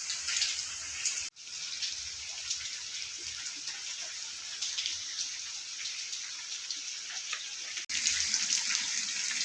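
Heavy rain falling and rainwater splashing and trickling, a steady hiss with scattered drops. It breaks off for an instant about a second in and again near the end.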